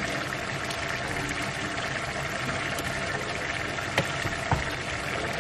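Thick stew simmering in a pot while a wooden spoon stirs it, with two sharp knocks of the spoon against the pot about four seconds in.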